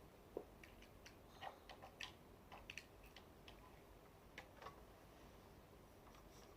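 Faint, irregular small clicks and taps of ring light and stand parts being handled and fitted together.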